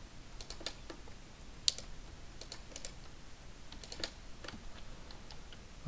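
Irregular light clicks of a computer keyboard and mouse, scattered keystrokes with one sharper click a little under two seconds in.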